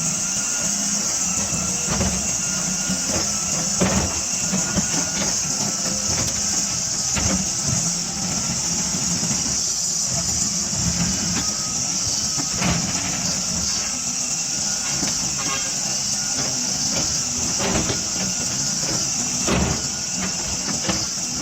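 A 320D hydraulic excavator running steadily: a diesel engine hum with a high hiss, a faint wavering whine, and scattered short knocks and clanks.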